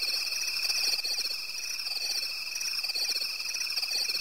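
Chorus of calling frogs: a continuous high pulsing trill with lower croaks repeating irregularly, about once or twice a second.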